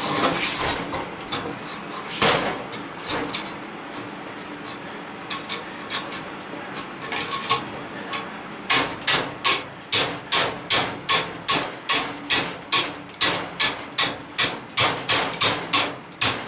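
Hammer striking the sheet-metal end plate of an air-conditioner A-frame coil: scattered clinks and scraping of the metal first, then from about halfway in a steady run of sharp blows, about three a second.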